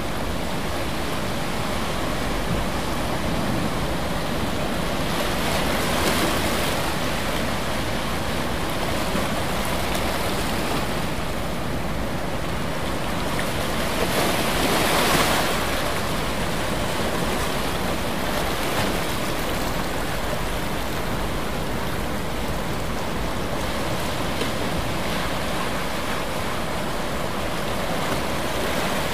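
Steady rushing noise of water or wind, swelling briefly about six seconds in and more strongly around fifteen seconds in.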